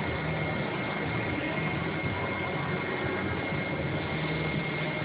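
Beaver CNC machining centre running, a steady even hum and hiss with a thin constant high tone, with no distinct clunks of the tool change itself.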